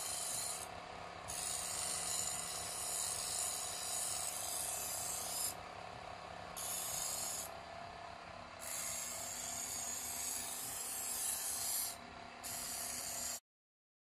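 Homemade bench grinder, an electric motor spinning a fine sandpaper disc, running with a steady hum while the cut edge of mirror glass is ground on it. A scratchy hiss of glass on abrasive comes and goes as the piece is pressed on and eased off. The sound stops abruptly just before the end.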